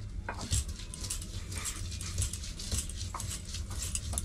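Kitchen knife scraping the peel off a raw potato by hand: a run of short, light scrapes over a low steady hum, with one brief louder sound about half a second in.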